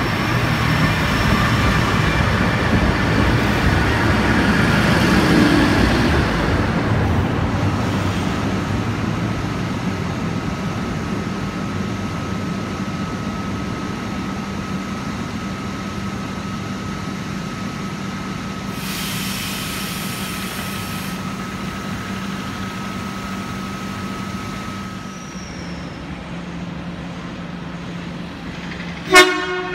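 NSW TrainLink stainless-steel diesel railcar set pulling out of the platform, loudest for the first several seconds, then fading into a steady low rumble with a thin high whine. Just before the end comes a short, very loud tone, the loudest moment.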